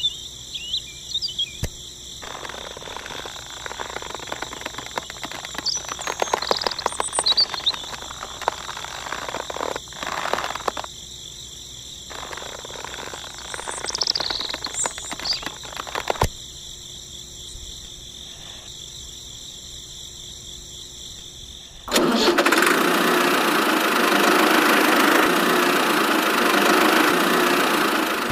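Sticks and twine being handled and tied onto a toy trailer, with light rustles and knocks. About three-quarters of the way through, a loud, steady engine running noise for the mini tractor starts suddenly.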